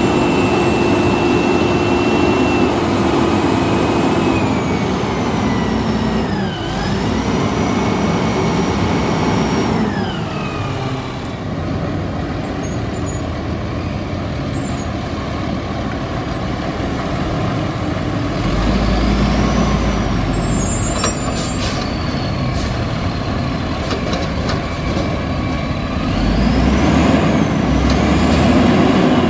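Peterbilt garbage truck with an Amrep automated side-loader body running and driving between stops, its diesel engine and hydraulics whining up and down as it revs, with air brakes hissing. Near the end the noise rises as the side arm lifts a cart.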